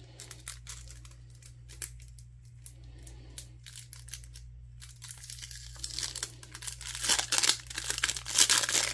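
Brittle biodegradable plastic wrapping crinkling as it is handled and opened. There are scattered crackles at first, then denser and louder crinkling from about halfway through.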